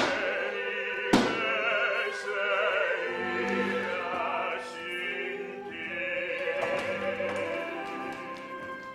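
Operatic singing with vibrato over a small orchestra playing a zarzuela number, with a sharp percussive hit about a second in.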